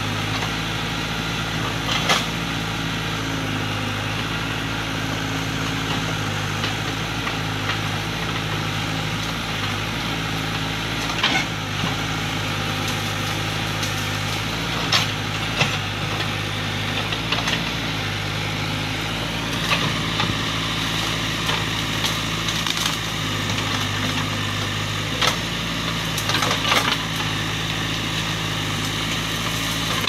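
Case 580K backhoe's diesel engine running steadily while the backhoe arm works, with scattered sharp cracks and knocks as the bucket snaps branches and pushes through brush.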